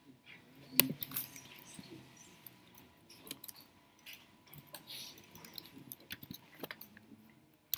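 Keystrokes on a laptop keyboard: scattered soft taps and clicks, the sharpest about a second in.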